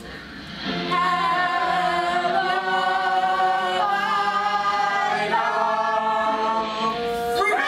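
A group of men and women singing together, unaccompanied, holding long sustained notes; the singing comes in after a short pause near the start.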